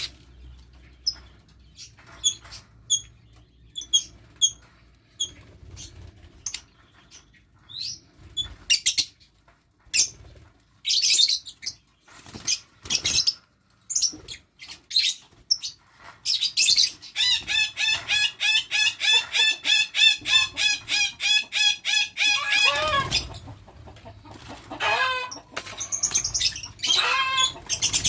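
Lovebirds chirping with short, sharp, high calls. In the second half comes a run of fast, evenly repeated chattering calls lasting about five seconds, then a lower call that slides down in pitch, and the chirping resumes.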